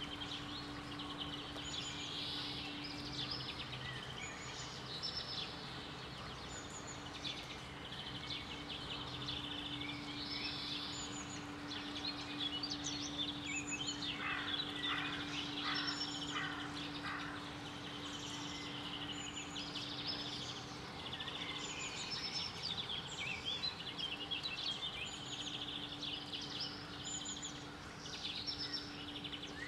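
Several birds chirping and singing continuously, with a run of quick falling notes about halfway through, over a steady low hum.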